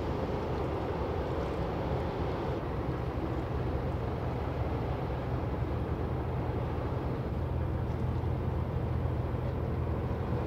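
Steady low drone of a passing cargo ship's engine, over a constant rushing haze; the hum grows stronger about seven seconds in.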